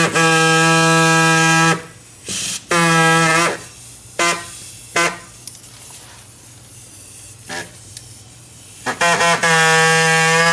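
Small electric zip saw fitted with a hacksaw blade, cutting through a rubber lawnmower-tire lug and switched on and off in bursts: a steady motor hum for a couple of seconds at the start, a shorter run and a few brief blips, then a longer run near the end.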